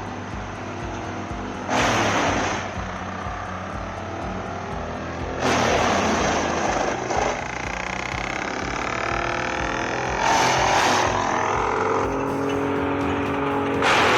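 Heavy machinery running, with loud noisy surges every few seconds, over background music with a steady beat.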